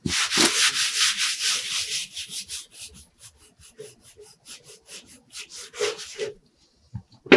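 A cloth rag scrubbing the painted metal lid of a tool chest that has been sprayed with Super Clean degreaser. It starts as fast, continuous hissy rubbing, then breaks into short separate strokes that grow fainter and stop about six seconds in.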